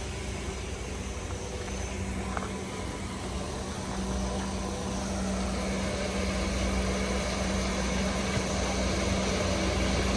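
A heavy engine running with a steady hum over a low rumble, growing gradually louder.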